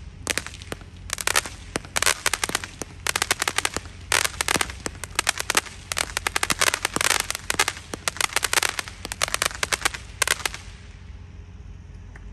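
Consumer fireworks cake firing at night: bursting shells give rapid volleys of crackling pops, in bursts about a second apart, which stop about eleven seconds in.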